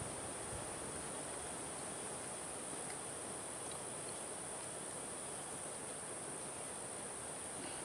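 Steady high-pitched buzz of an insect chorus over a faint outdoor background hiss.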